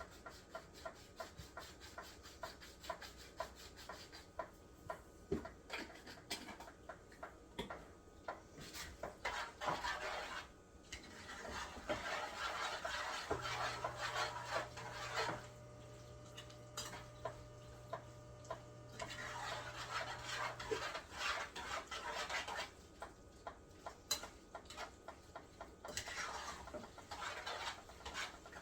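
A spoon stirring mac and cheese in a pot, with quick repeated clicks against the pot and several stretches of scraping. A low steady hum comes in for several seconds in the middle.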